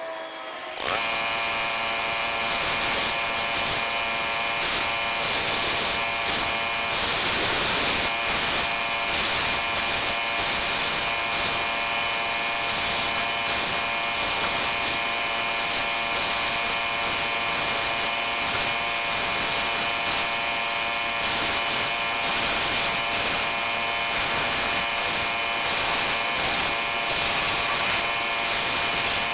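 Small electric motor of a home-made mini milling machine starting up about a second in and running steadily with a high whine.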